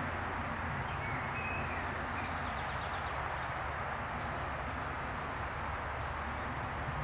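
PKP Energetyka PS-00.M overhead-line maintenance vehicle running past on the track, a steady engine rumble with rail noise. Birds call over it: a short call about a second in, a quick run of chirps about five seconds in and a thin high whistle about six seconds in.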